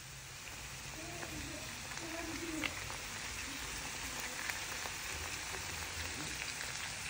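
Potatoes and beef frying in a pan: a steady sizzling hiss with scattered small pops and crackles.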